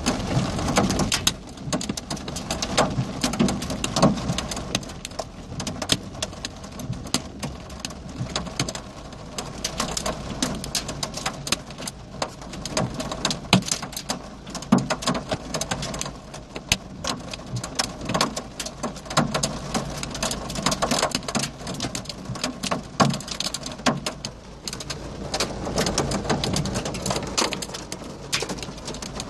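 Rain and hail hitting a car's roof and windscreen, heard from inside the cabin: a steady hiss of rain with dense, irregular sharp ticks of hailstones.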